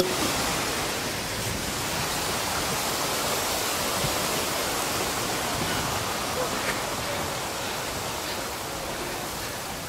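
A steady, even rushing noise that slowly fades.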